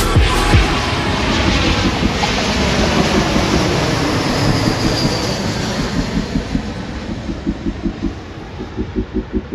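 Jet airliner, an American Airlines Airbus A321, passing close by with a loud engine roar that slowly fades. A regular pulsing, about three beats a second, comes in over the last couple of seconds.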